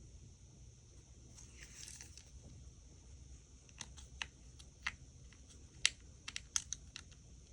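Irregular small, sharp clicks and taps, about a dozen in the second half, after a soft rustle about two seconds in: small tools and tiny screws being handled against an iPhone 5 during reassembly.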